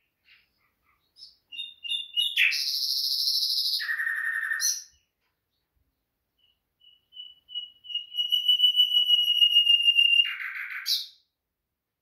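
Common nightingale singing two phrases. The first is a fast buzzing rattle. The second is a long run of whistled notes on one pitch that swell in loudness and speed up, then end in a short harsh burst.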